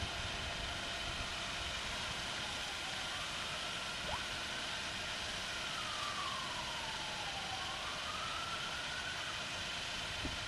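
Steady hiss of background noise with a faint siren-like tone wailing slowly over it: rising, falling for a couple of seconds, then rising again. There is a single short click about four seconds in.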